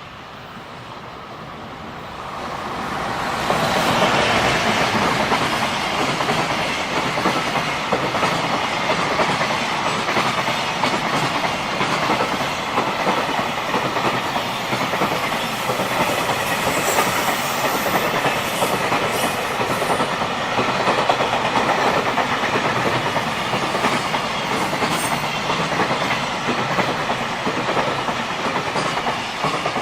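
A freight train passing close by: the noise of wheels on rails builds over the first few seconds as it nears, then holds loud and steady as the long train of wagons runs past, easing just at the end.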